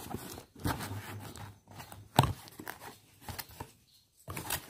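Cardboard shipping box being handled and opened: scattered rustles, scrapes and knocks, with one sharp snap about two seconds in.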